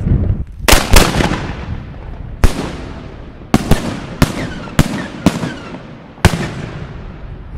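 Italian aerial firework shell, a "scala 5" titanium salute ladder with dahlia, bursting as a run of about nine sharp loud reports at uneven gaps, each dying away in a trailing echo. The loudest two bangs come about a second in.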